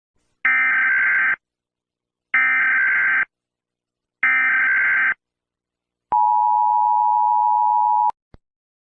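Emergency Alert System SAME header: three buzzing digital data bursts of about a second each, followed by a steady two-tone attention signal that lasts about two seconds. Together they mark the start of a new alert, here the emergency action termination.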